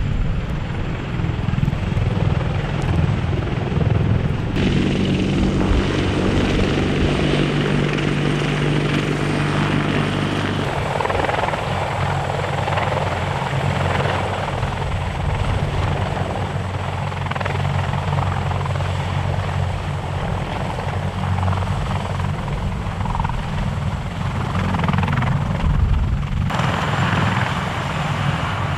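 Large helicopter running close by, with a steady rotor and turbine drone; the sound changes abruptly about four seconds in, about ten seconds in and near the end, as the footage cuts between shots.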